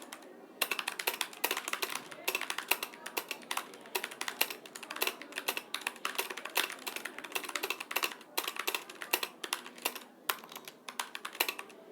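Fast typing on a computer keyboard: a quick, steady run of keystrokes during a speed-typing test, with a short pause at the start and another about ten seconds in.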